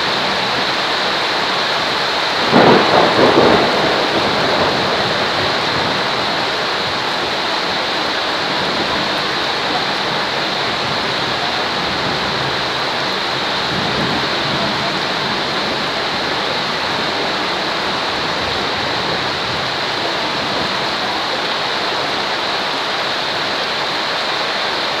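Steady rain falling as an even hiss, with a short burst of thunder about two and a half seconds in.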